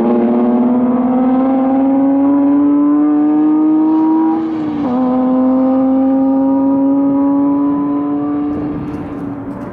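A car's engine pulling hard at full throttle on a race track, its pitch climbing steadily. It drops with an upshift about five seconds in, climbs again, then fades near the end.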